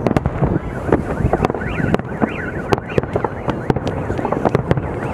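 Fireworks display: a rapid, irregular series of bangs and cracks from bursting shells over a continuous rumble, with a brief warbling whistle about two seconds in.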